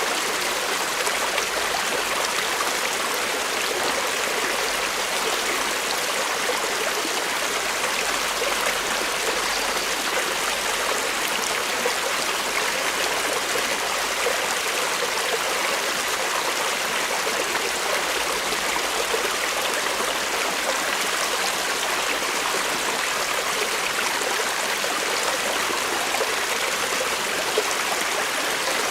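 Creek water running steadily over rocks, an even rushing and burbling with no breaks.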